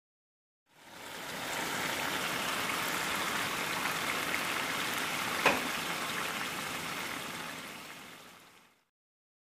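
Mutton korma sizzling in oil in a frying pan, a steady hiss that fades in and fades out, with one sharp click about halfway through.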